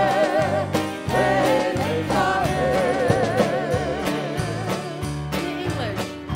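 Dance music with a singing voice carrying a wavering, vibrato melody over a steady beat and bass.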